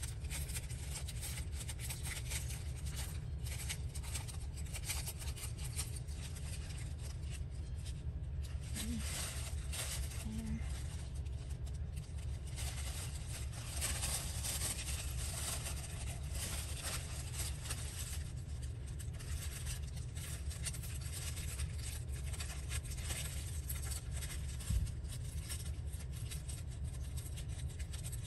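Scissors snipping and paper rustling as daisy motifs are cut from a sheet of paper, over a steady low hum, with one short knock about 25 seconds in.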